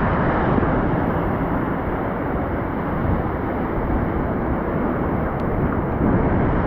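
Strong wind buffeting the microphone, a steady loud rumble over the sound of sea surf and spray.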